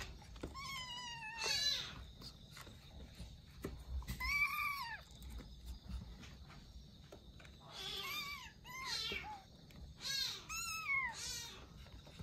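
Young kittens meowing: a string of high-pitched calls, the longest and loudest about four seconds in, and several in quick succession in the last few seconds.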